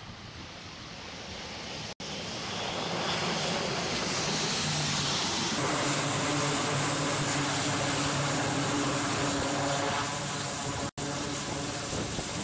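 Twin turboprop engines of a C-2A Greyhound carrier transport running with propellers turning: a steady loud drone with a low hum, growing louder over the first few seconds.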